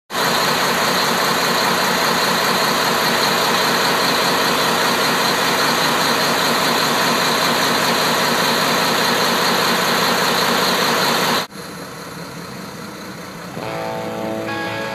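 Caterpillar marine diesel engine running at idle in an open boat engine room, a loud steady drone. It cuts off abruptly about three-quarters of the way through, leaving quieter background, and strummed guitar music comes in near the end.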